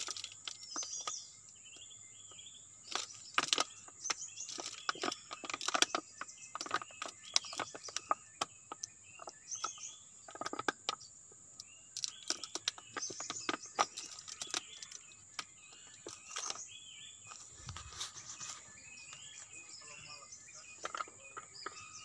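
Irregular clicks and crackles from a plastic bottle of gear oil being handled and squeezed while it pours into an excavator's final drive. Birds chirp in the background over a steady high insect drone.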